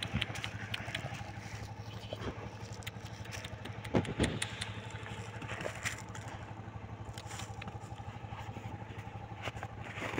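A small engine running steadily with a low hum. Scattered clicks, and a brief louder sound about four seconds in.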